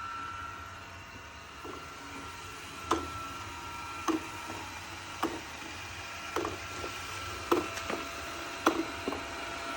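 Robot vacuum-mop running with a steady faint motor whine, and a regular knock about once a second from about three seconds in.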